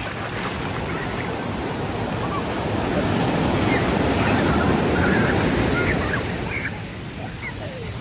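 Ocean surf breaking on a sandy beach: a steady wash of waves that swells about halfway through and eases off near the end.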